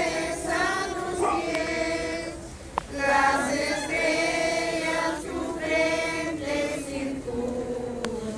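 A group of voices singing a hymn together in long, held phrases, with a short break in the singing just before three seconds in, where a single sharp click is heard.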